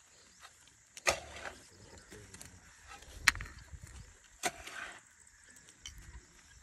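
Hands scooping and pressing loose soil around a newly planted sapling: soft scraping and patting, with three sharper knocks about a second in, after three seconds and after four and a half seconds.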